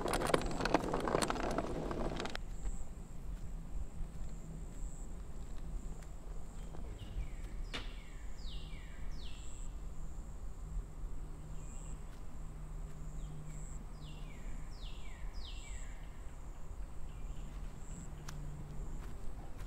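Summer outdoor ambience: a steady high insect buzz, with a bird calling twice in runs of three quick falling notes. A burst of rustling noise fills the first two seconds and cuts off abruptly.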